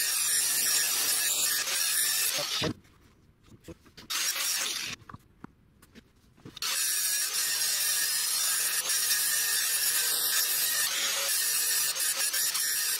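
Angle grinder grinding the steel lip off the cheek of a Vespa 200cc crankshaft, so that it fits a 125cc engine case. It runs steadily, breaks off twice for a second or two about three and five seconds in, then grinds on.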